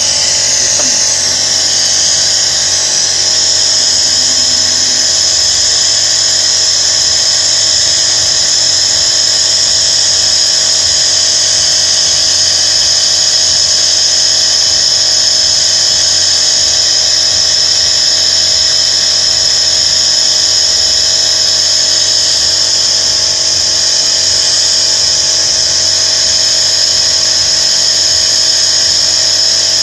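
Car engine running steadily during an engine flush, with a loud, steady high hiss over its hum.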